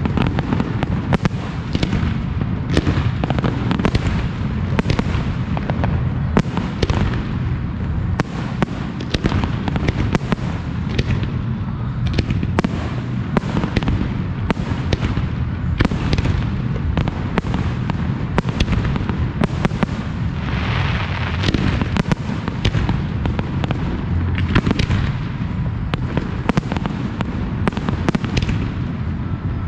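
Professional fireworks display firing a dense barrage: many sharp shell bursts a second over a continuous deep booming, with a brighter hissing stretch about twenty seconds in.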